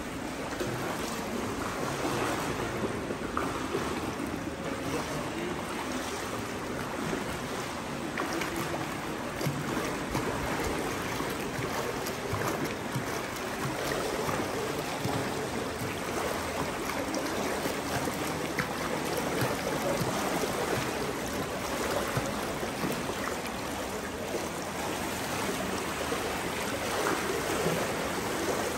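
Pool water splashing and lapping as swimmers move through it, a steady wash of water noise.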